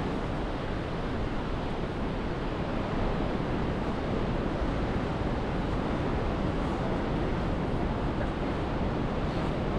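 Ocean surf: a steady, even rush of breaking waves.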